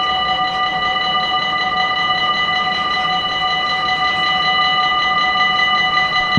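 Several electric level-crossing warning bells ringing at once, a fast, even ringing that goes on without a break.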